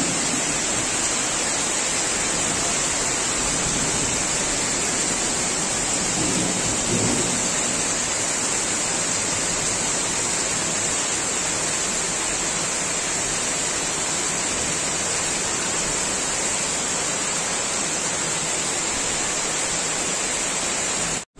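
Torrential rain pouring down in a steady, even hiss.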